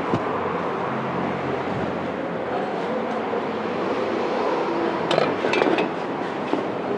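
Front shock absorber from a Maruti Suzuki Alto 800 being pressed and worked by hand, giving a steady mechanical rumble with a few sharp metallic clinks a little after five seconds in. The shock's action is being checked after its top mount bush and bearing were replaced.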